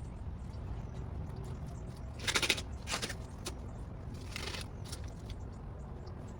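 Steady low outdoor rumble, with three short rustles about two, three and four and a half seconds in.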